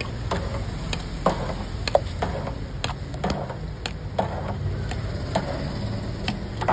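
Metal ladle scooping chickpea curry from a large brass pot into a steel bowl, clinking against the metal at irregular intervals, about one or two clinks a second, over a steady low hum.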